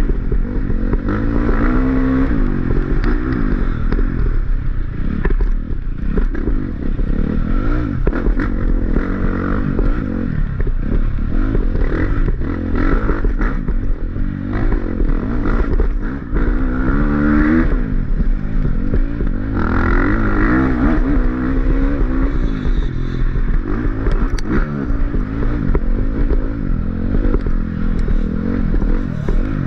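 Off-road dirt bike engine revving up and down again and again as the throttle is worked, with scraping and clattering from the bike over rough ground.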